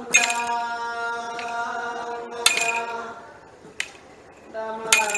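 Iban timang ritual chant: men's voices holding long drawn-out notes, which die away about three seconds in and start again near the end. Over the chant, a ritual staff is struck on the floor four times, each strike a sharp clink.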